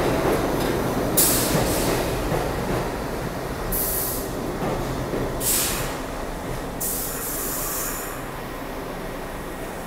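New York City subway train rumbling along the track and slowing into the station, the rumble fading as it brakes. Four short high-pitched bursts of metallic screech come from the wheels and brakes.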